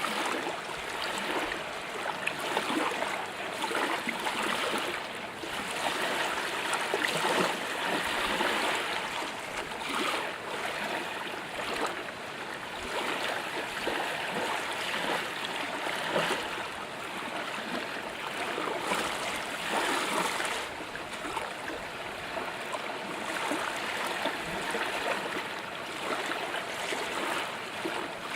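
Water lapping against a boat's hull: small irregular splashes and slaps that swell and ebb unevenly.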